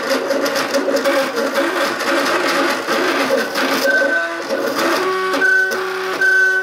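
MakerBot Cupcake CNC 3D printer's stepper motors driving the print head and build platform, whining at shifting pitches. The first part is a busy chatter of quick short moves; from about five seconds in it changes to held tones that step to a new pitch every half second or so.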